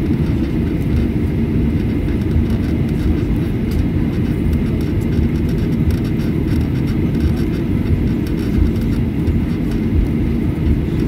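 Cabin noise of a Boeing 737-800 taxiing: a steady low rumble from its CFM56-7B engines at taxi power, with a faint steady high whine.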